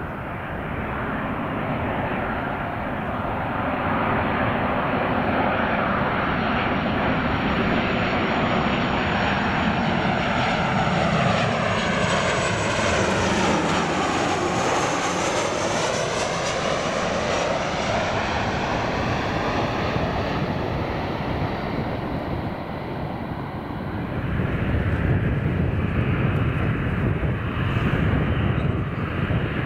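Boeing 737-800 on landing approach, its CFM56 turbofans whining and rushing as it flies past, with a flanging sweep in the sound as it passes closest about halfway through. Near the end a deeper, louder low rumble comes in.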